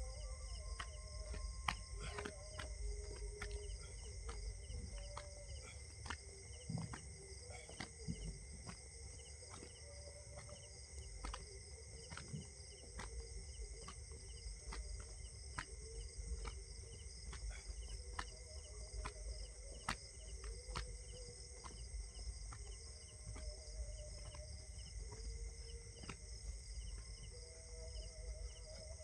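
Insects chirping steadily, a high shrill drone with a fast pulsing trill, crossed by short sharp clicks about one and a half times a second and faint wavering voice-like sounds.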